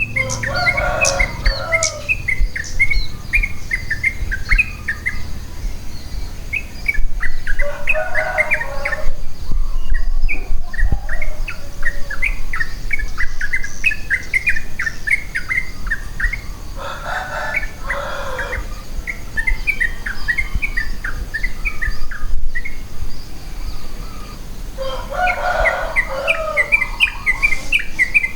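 Morning birdsong from several birds: a steady run of quick, high chirps, with a lower, fuller call from another bird breaking in four times, about every eight or nine seconds.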